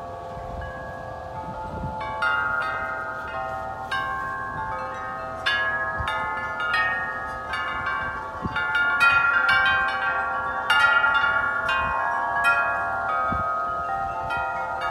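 Wind chimes ringing in the wind, many struck tones overlapping and sustaining, growing busier and louder about two seconds in. A low rumble of wind runs underneath.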